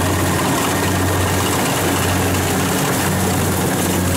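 Kubota DC70 combine harvester running steadily as it cuts and threshes rice: a constant low diesel-engine drone under a broad even rush of machinery noise.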